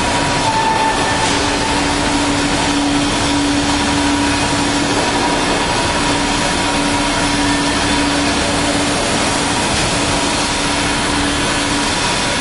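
Kaltenbach WBZ 1500 CNC plate drilling and profiling machine at work on a steel plate: a loud, steady machine noise with a droning hum that breaks off for moments a few times.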